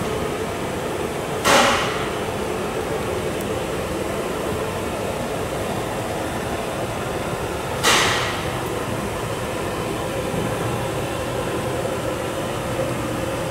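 Gauge 1 model goods wagons rolling past on the track, a steady rumble of metal wheels on rails. Two short hiss-like bursts break in, about a second and a half in and again near eight seconds, each dying away within half a second.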